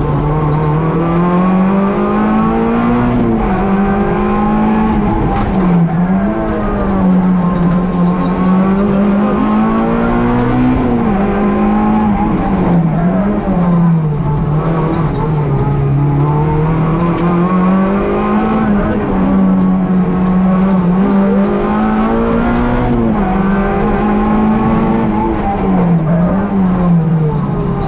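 Rally car's engine heard from inside the cabin at full stage pace, its pitch climbing under acceleration and dropping sharply every few seconds at gear changes and braking for corners, over constant road and tyre noise.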